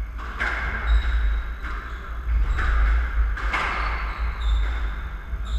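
Squash rally: the ball struck by rackets and hitting the court walls about once a second, each hit ringing in the enclosed court, with short high squeaks of court shoes on the wooden floor.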